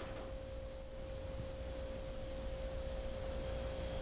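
A steady single-pitched whine, mid-high and unchanging, over a low electrical hum, with a couple of faint light clicks near the start.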